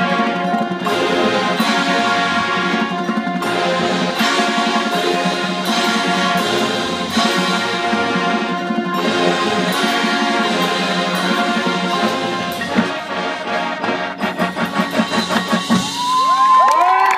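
High school marching band playing, brass over drums. Near the end a run of quick accented hits leads into a loud final held chord.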